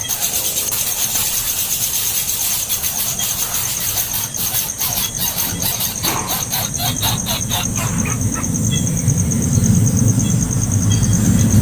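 Nestling birds begging for food with rapid, high-pitched cheeps, over a steady high hiss. A low rumble builds up in the last few seconds.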